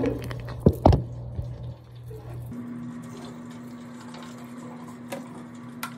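A few knocks as the phone is moved and set down, then hot water pouring from a saucepan of boiled potatoes into a stainless steel sink, a steady hiss of running water.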